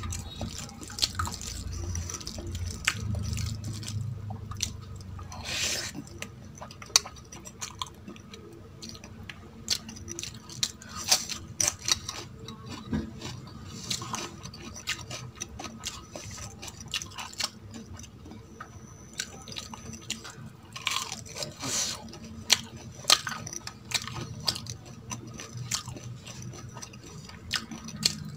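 Close-miked eating sounds of a person chewing spicy chicken curry and rice: wet, irregular mouth clicks and chewing.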